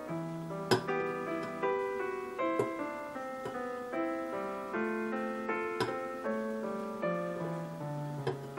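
Background piano music, with a few sharp clinks of a metal ladle against the pot, the loudest just under a second in.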